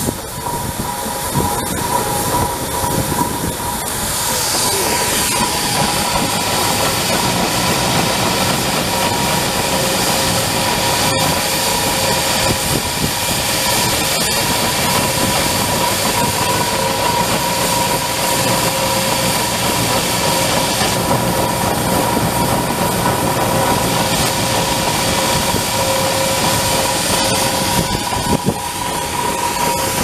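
Steam ploughing engine hauling the plough on its cable: a loud, steady rush of steam and working machinery, with a steady whine over it.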